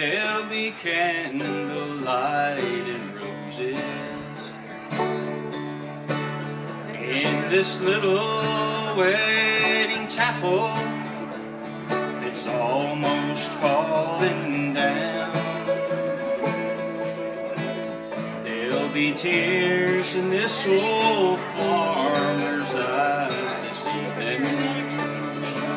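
A bluegrass band playing live on acoustic guitar, mandolin, five-string banjo and acoustic bass guitar.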